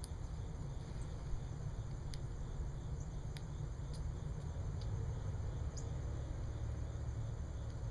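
Red-bellied woodpecker pecking at a suet block: about half a dozen faint, sharp, irregularly spaced ticks over a steady low outdoor rumble.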